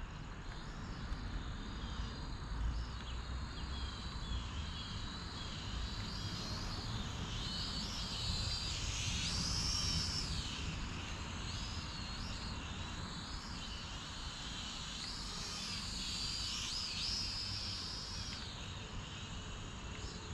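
AVIALOGIC H22 quadcopter drone's propellers whining in flight, the pitch sliding up and down as the motors speed up and slow down; loudest about halfway through and again near the end. A low rumble sits underneath.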